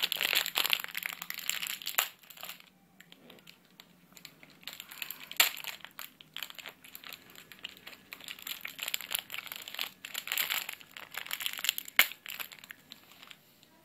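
Small clear plastic bag of candy balls crinkling as it is handled, in irregular bursts, with one sharp click near the end.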